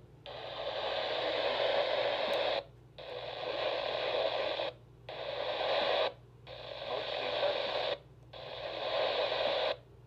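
RadioShack weather radio's speaker hissing with static as it is stepped through channels. There are five stretches of hiss, each swelling in volume over a second or two, split by brief cut-outs at each channel change. No broadcast comes through.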